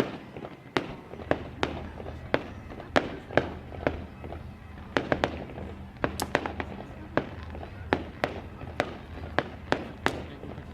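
Fireworks going off: a run of sharp bangs at irregular spacing, roughly two a second, some louder and closer together, over a low steady hum.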